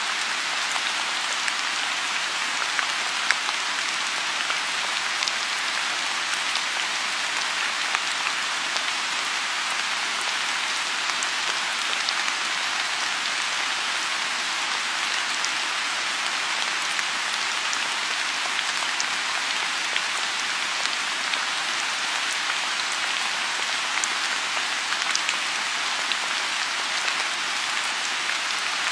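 Steady rain falling on a pond, an even hiss with scattered individual drops pattering.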